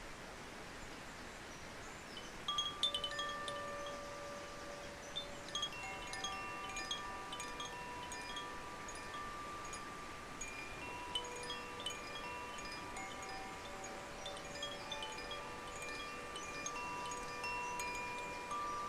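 A chime rings out many clear overlapping tones, each note sounding for a second or more, with light tinkling strikes on top. It starts about two and a half seconds in, over the steady rush of a river.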